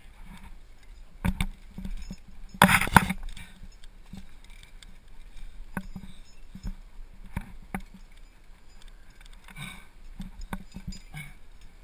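Scuffs, knocks and light clicks of a rock climber moving on a crag, heard close up through a helmet-mounted camera: hands and shoes on rock and climbing gear clinking. The loudest scuffs come about one and three seconds in, then lighter ticks follow.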